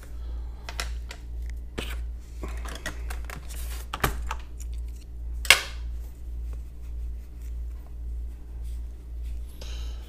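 Keycaps being pulled off a mechanical keyboard and set down: scattered light plastic clicks and taps, the two sharpest about four and five and a half seconds in, over a steady low hum.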